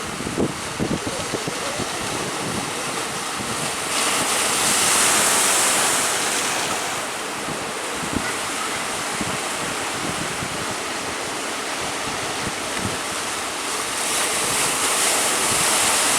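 Sea surf breaking and washing, with strong wind buffeting the microphone. The rush of the breakers swells about four seconds in and again near the end.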